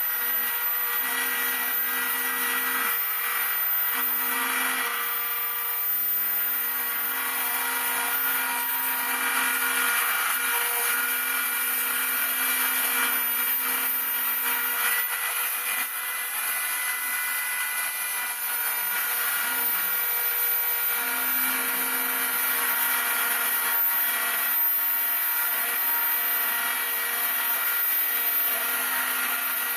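Spindle of a home-built CNC router running steadily with a high whine while milling model-aircraft wing ribs. A lower tone under it starts and stops every second or two as the machine moves.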